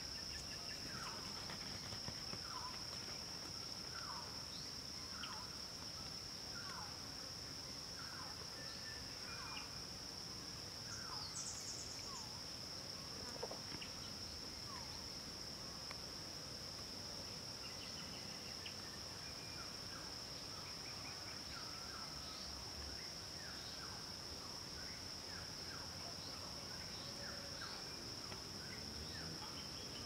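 A steady high-pitched insect drone, with a bird's short falling calls repeated about once a second for the first ten seconds, then scattered through the rest.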